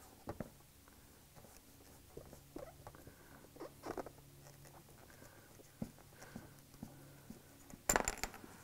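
Fishing line sawing through the foam adhesive behind a plastic emblem letter on a car's tailgate: faint, irregular scratching and small ticks, with a short louder rasp near the end.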